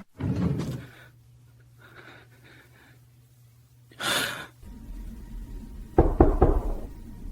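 A person gasping sharply about four seconds in, over a low hum. A dull thud comes at the start, and a low rumble with a few knocks comes near the end.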